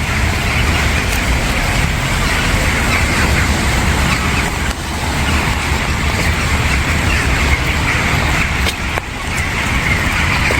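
Steady rainfall with a low traffic rumble underneath, and many short high bird chirps scattered through it.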